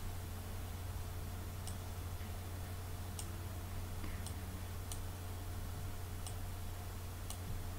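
Computer mouse clicking a handful of times, single sharp clicks roughly a second apart as stick-figure joints are picked up and dragged, over a steady low hum.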